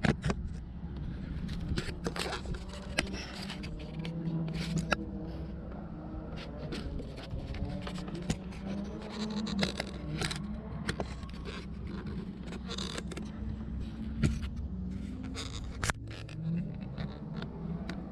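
Camera handling noise as the camera is moved about under the car: many short scrapes, rubs and knocks at irregular intervals, over a steady low hum.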